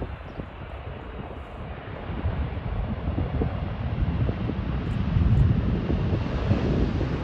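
Boeing 747-400ER's four jet engines rumbling on the landing roll just after touchdown, the roar growing steadily louder as the jet closes on the listener.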